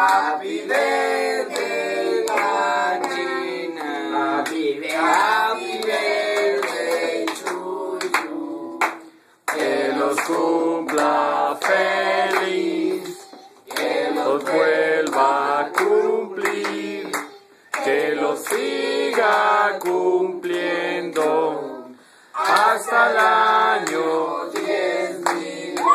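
A group singing together with steady handclaps keeping time; the singing breaks off briefly several times between phrases.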